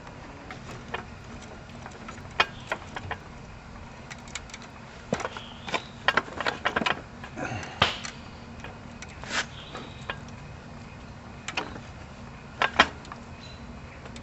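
Metal hand tools clinking and knocking in scattered, irregular clicks, with a busier cluster about five to eight seconds in, as bolts are worked loose on a lawn tractor's transaxle.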